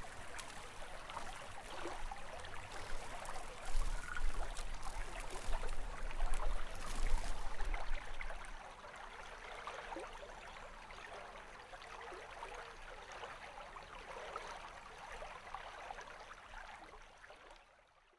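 Running water of a small stream, trickling and gurgling; louder in the first half, then quieter, fading out near the end.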